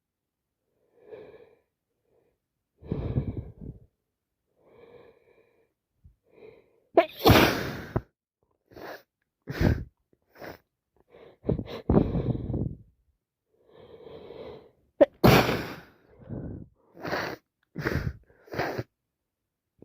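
A woman with a head cold turned to sinusitis sneezing again and again, with breaths in between. The loudest sneezes come about seven and fifteen seconds in, and several quicker ones follow near the end.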